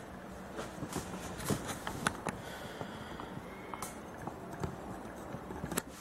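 An Alienware M18x R2 laptop being handled: a series of light clicks and knocks as it is set down and its lid is raised.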